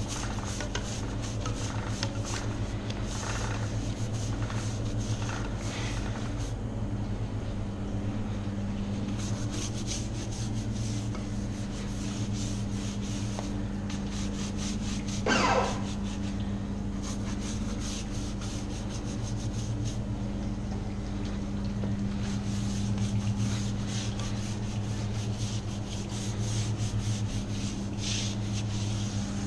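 Stiff-bristled hand brush scrubbing a dirtbike's knobby tyre and spoked wheel rim: continuous scratchy rubbing with a brief louder scrape about halfway through, over a steady low hum.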